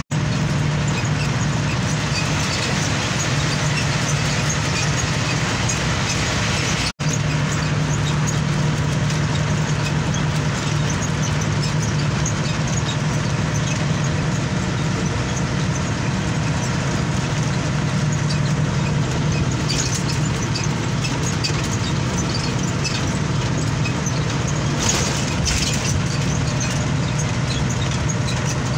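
Large road vehicle driving at highway speed, heard from inside the cab: a steady low engine drone under road and wind noise. The sound cuts out for an instant about seven seconds in.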